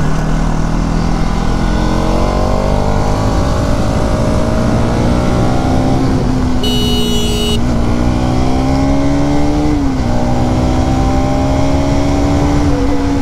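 Bajaj Pulsar NS200's single-cylinder engine pulling under acceleration, heard from the rider's seat over low wind rumble. Its note climbs steadily and drops back at gear changes about six and ten seconds in, then holds fairly steady. A brief high tone sounds about seven seconds in.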